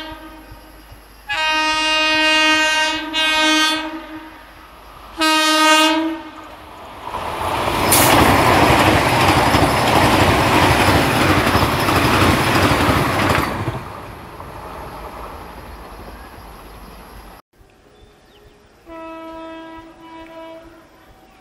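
Vande Bharat Express electric train sounding its horn as it approaches: a long blast, a short one, then another short blast. It then rushes past at speed, a loud, steady rumble and clatter for about six seconds that tails away. A fainter horn blast sounds near the end.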